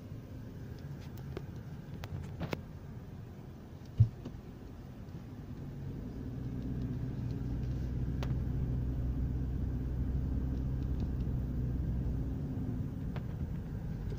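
Road and engine rumble heard inside a moving car, growing louder about six seconds in. A single thump sounds about four seconds in.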